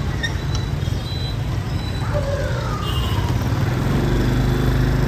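Street traffic with vehicle engines running, a steady low rumble that grows a little louder past the middle.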